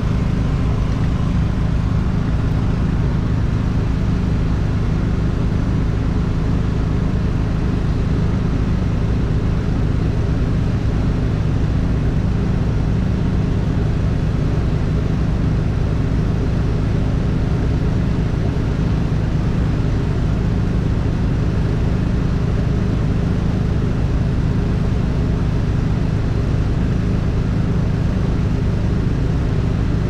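Steady low engine and road rumble of a vehicle driving at an even pace.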